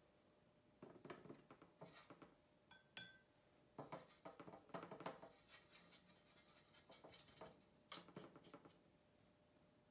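Faint clicks and scrapes of watercolour painting tools being handled, in three short clusters, with one brief ringing clink about three seconds in.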